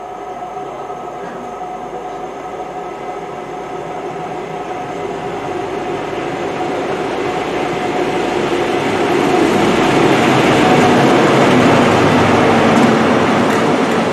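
GWR Class 43 High Speed Train (InterCity 125) approaching and running through the station at speed: diesel power car and wheel-on-rail noise grow steadily louder and are loudest as the power car and coaches go by in the last few seconds.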